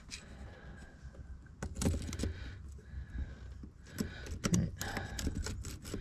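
Small metallic clicks and light scrapes from a DADA 2-in-1 dimple pick seated in a Mul-T-Lock cylinder and worked up and down against the pins. The clicks are sparse at first, then come in a quick irregular run over the last two seconds.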